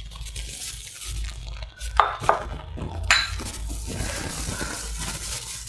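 Gram-flour dough being kneaded by a hand in a plastic glove in a glass bowl: the glove and the crumbly dough rustle and scrape against the glass. A few sharp knocks against the glass bowl come about two and three seconds in, the last ringing briefly.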